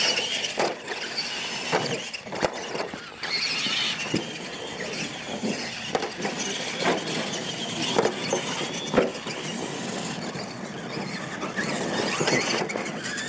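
Two electric radio-controlled monster trucks racing over a dirt track: motors and drivetrains whining up and down in pitch with the throttle, tyres scrabbling on dirt, and sharp thuds now and then as the trucks land off jumps.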